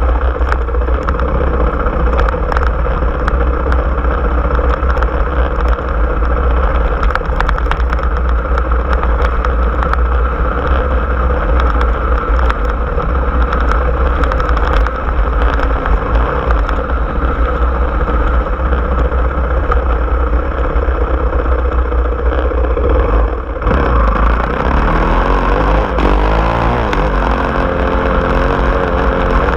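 Small off-road vehicle's engine running as it drives along a rough dirt trail, with rattling and clattering over the bumps. Over the last few seconds the engine's pitch rises and falls as the throttle changes.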